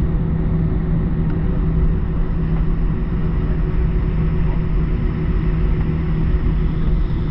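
Steady hum and air noise inside the cabin of an Airbus A320 standing on the ground, with a low steady drone that does not change.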